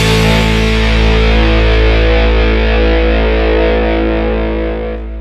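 Rock outro music ending on one long distorted electric-guitar chord, held and ringing out, fading away near the end.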